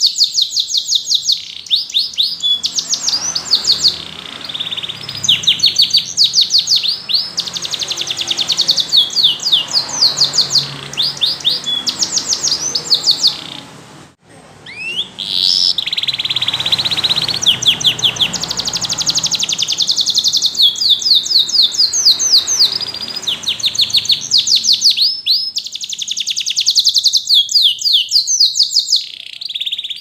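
Domestic canary singing: long runs of rapid trills and rolls of high, quickly repeated notes, broken by a brief pause about halfway through.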